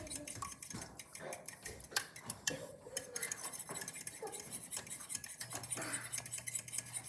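A utensil clinking and scraping against a mixing bowl in quick, irregular clicks, stirring the egg-and-milk mixture.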